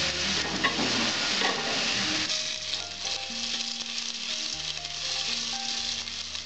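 Bay leaves and panch phoron seeds sizzling in hot oil in an aluminium pot, stirred with a wooden spatula. The sizzle is busiest for the first two seconds or so.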